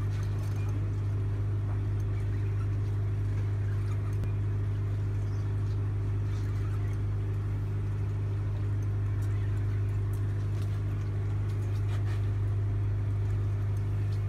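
Fishing boat's engine running steadily, a constant low drone with no change in pitch.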